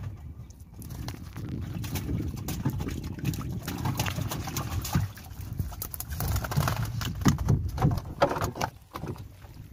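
A wet fishing net being handled as fish are freed from it and dropped into a wooden boat, giving a run of irregular knocks, rustles and splashes. It is loudest near the end, then goes quieter.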